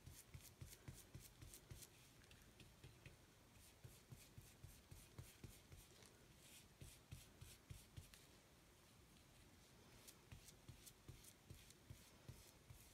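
Faint scratching of a flat paintbrush's bristles stroking ink onto textured cork fabric, in quick repeated strokes with a couple of short pauses.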